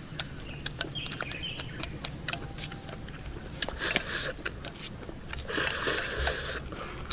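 Chopsticks clicking and scraping against a ceramic bowl as food is shoveled into the mouth and chewed, with short noisy bursts of slurping or chewing around the middle and near the end. A steady high insect buzz runs underneath.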